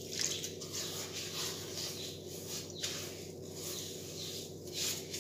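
Silicone spatula stirring sprouted-wheat flour and maida with a little water in a karahi, making soft, repeated scraping strokes. Birds chirp in the background.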